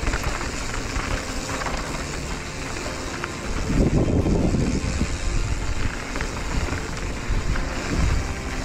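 Strong headwind buffeting the microphone of a camera on a moving mountain bike, mixed with tyres rolling over a dirt trail; a louder gust comes about four seconds in.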